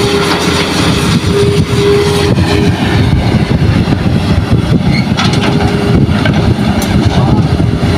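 Hitachi hydraulic excavator's diesel engine working under load as it digs and loads soil into a dump truck, with a steady whine that comes and goes.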